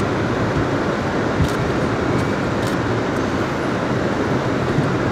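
Steady rumble and hiss of a car's engine and tyres, heard from inside the cabin as it creeps slowly forward.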